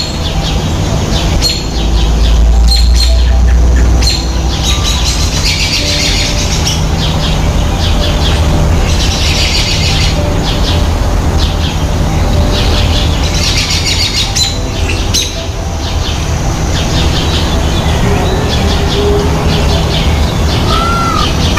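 Birds chirping and calling over a steady low rumble. The rumble is loudest about two to four seconds in, and clusters of chirps come several times.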